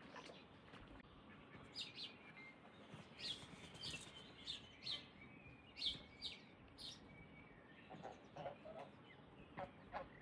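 Small birds chirping in short, sharp, high notes again and again, with a few lower calls near the end.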